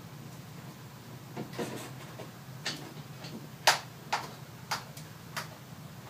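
Clamps being set and tightened on the ends of a wooden saw-sharpening vise: a series of separate knocks and clicks of metal and wood, the loudest a little past halfway.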